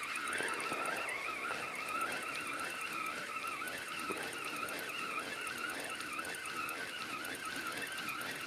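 Feeder-rod spinning reel being cranked steadily, its gears giving a continuous wavering whine as the line and feeder are wound in after the strike.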